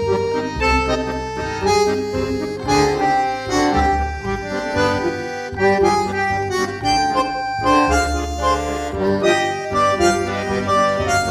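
Instrumental background music: a melody of held notes over a bass line.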